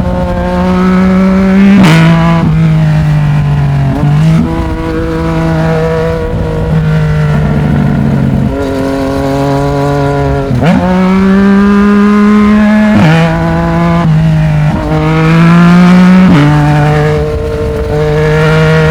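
Yamaha MT-09 inline-three engine running through a Black Widow aftermarket exhaust while riding, its note holding steady between gear changes. Pitch steps down or sweeps up sharply about half a dozen times, at each shift.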